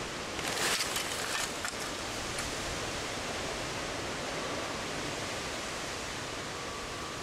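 A gloved hand spreading and patting wet sand-and-cement mortar: a short scraping, rustling patch about half a second in, followed by a few light clicks, over a steady outdoor hiss.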